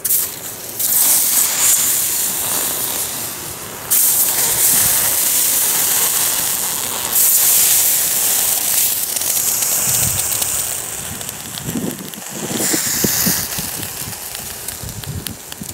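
Long loud hisses of steam as snow is packed onto the burning tin-can rocket stove, putting the fire out, with crunching of snow being pushed around the can near the end.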